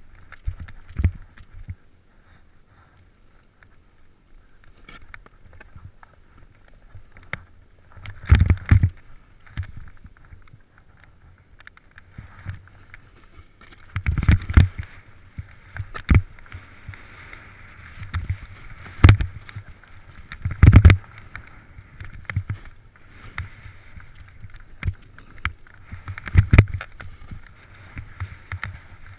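Snowboard sliding and carving down through soft snow: a steady swishing hiss that grows stronger about halfway through, broken by loud thumps every few seconds.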